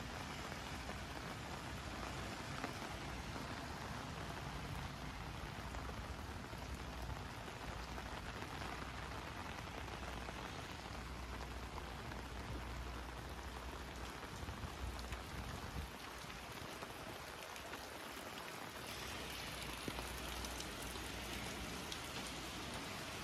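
Steady rain falling on pavement, an even hiss with a low rumble underneath.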